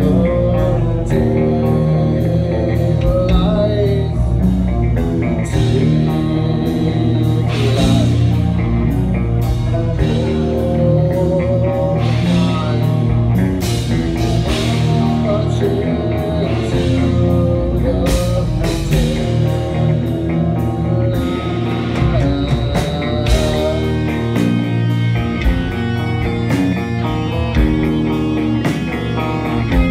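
Live rock band playing with electric guitars and a drum kit: a loud, dense wall of guitar chords and drum hits, with a wavering melodic line riding over the top.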